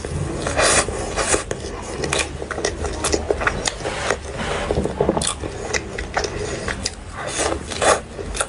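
A person chewing and biting into a soft cream-topped pork-floss cake, with many irregular wet mouth clicks and smacks.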